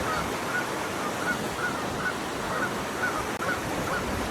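A bird calling over and over in short, even notes, about three a second, over a steady rushing background.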